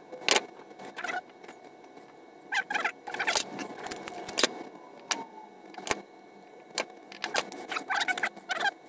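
Hand tools on thin wire: a snip of flush wire cutters, then the clicks and squeeze of a ratcheting crimping tool closing a spade terminal onto the wire, with bursts of rustle as the wires and terminals are handled.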